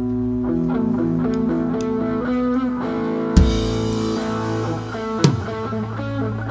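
Live rock band playing an instrumental passage led by sustained guitar notes. A drum hit with a cymbal crash lands about halfway through, and another drum hit near the end.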